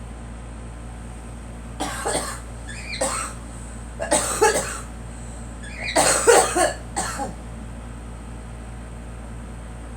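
A girl coughing in four short bouts, the longest and loudest about six seconds in, over a steady low hum. The coughing is put down to pollen.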